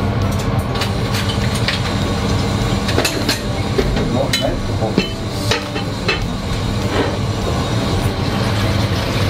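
A steady low mechanical hum, with a dozen or so scattered clicks and clinks of a utensil against a pan and plate as food is served.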